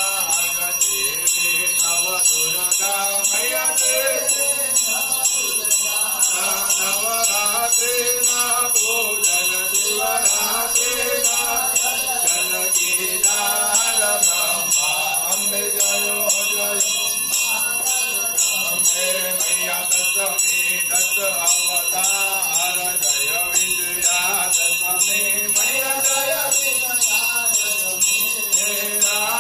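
Devotional aarti music: temple bells ringing rapidly and without a break, over voices singing a chant.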